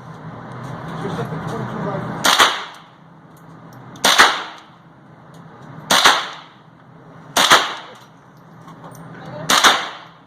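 Five gunshots fired one at a time, a second and a half to two seconds apart, each with a short echoing tail.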